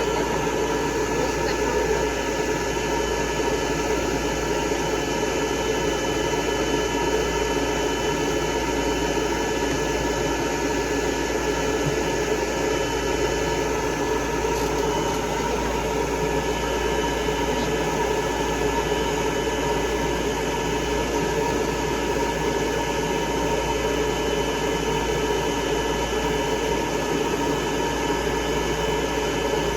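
A hair dryer blowing steadily on a dog's coat, a constant rushing hiss with a faint steady whine.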